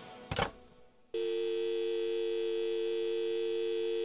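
Telephone dial tone: a steady, unbroken two-note hum that starts about a second in, just after the last sound of the song fades away.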